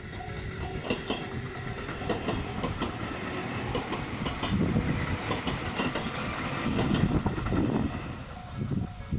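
A train passing over a level crossing, its wheels clacking rhythmically over the rail joints, loudest about seven seconds in and fading near the end. The crossing's warning bells keep ringing under it.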